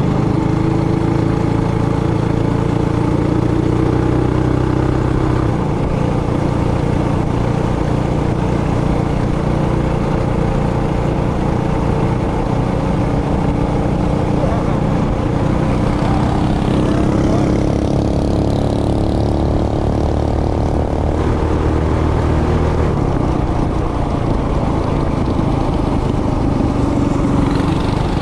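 Trailmaster Hurricane 200X mini bike's single-cylinder four-stroke engine running while riding, its note rising and falling as the throttle is worked, with a rising rev about two-thirds of the way through.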